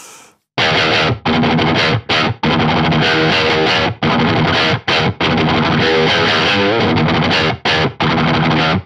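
Fender Stratocaster electric guitar through high-gain distortion playing a picked thrash-metal riff. The riff starts about half a second in and is broken by several short, abrupt stops. It cuts off sharply near the end.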